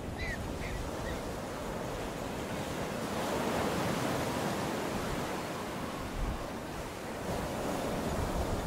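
Sea surf washing steadily on the shore, mixed with wind on the microphone, swelling a little about three seconds in.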